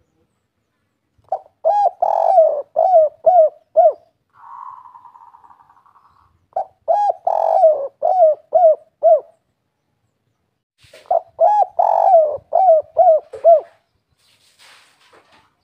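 Spotted dove (derkuku/tekukur) cooing its 'kuk 3' song three times: each phrase is a few low hooting notes and one longer coo, ending in three short 'kuk' notes. A fainter buzzy sound comes between the first and second phrases.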